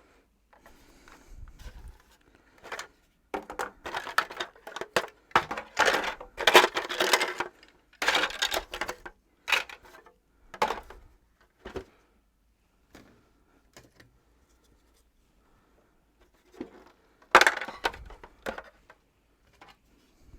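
Handling clatter: plastic vacuum-cleaner parts being picked up, knocked together and set down, in irregular clicks and scrapes. A busy spell in the first half, a lull, then a short burst of clatter near the end.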